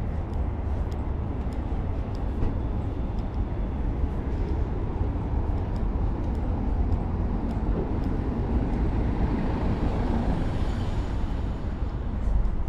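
Street ambience: a steady traffic rumble, with a vehicle passing about eight to eleven seconds in.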